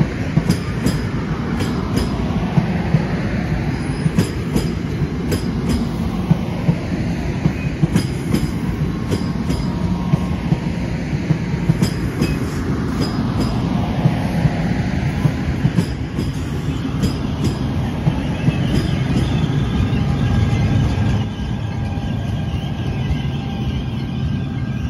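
NJ Transit electric push-pull train of bilevel coaches passing close by: a steady rumble of wheels on rail with a regular clickety-clack over the rail joints. A steady whine joins in near the end as the ALP-46A electric locomotive goes by.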